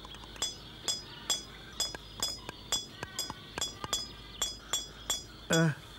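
Hammer tapping on a chisel against stone, about two strikes a second, each a short, ringing metallic clink.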